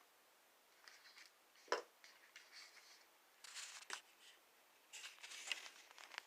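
Faint handling of a 5.11 Tactical LMC Recurve folding pocket knife in the hands: soft rustling and scraping, with a sharp click a little under two seconds in and another click about four seconds in.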